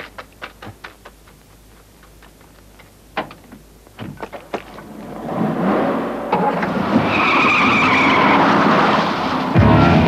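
A few sharp clicks, then from about five seconds in a car accelerating hard, its engine rising and its tyres skidding with a squeal. It grows steadily louder.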